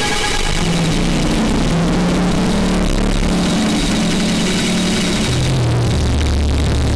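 Harsh noise music: a loud, unbroken wall of distorted noise over a low droning hum that drops in pitch a little past five seconds in.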